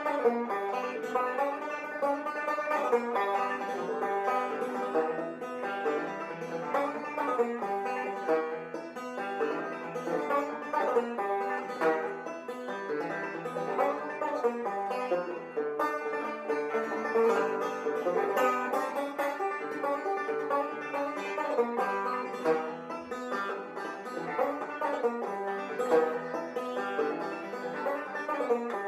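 Banjo music with quick plucked notes in a bluegrass style.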